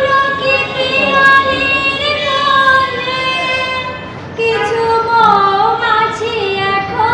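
A high voice singing long, drawn-out notes, with a short break about four seconds in.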